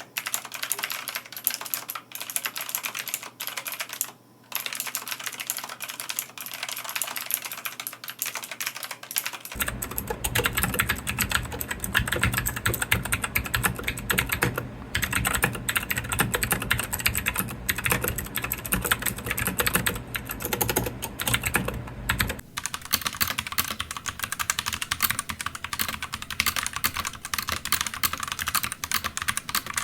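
Continuous fast typing on mechanical keyboards, dense clacking keystrokes, on three boards in turn: a Royal Kludge typewriter-style keyboard, then a FICIHP K2 from about ten seconds in with a deeper, fuller sound, then a Womier WK61 from about twenty-two seconds in with a brighter, thinner clack.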